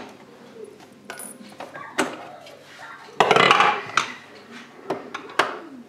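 Plastic parts of a Krups XP7200 bean-to-cup espresso machine being handled as its bean hopper lid and container are lifted off the top: a series of sharp clicks and knocks, with one louder rattling scrape lasting under a second just past the middle.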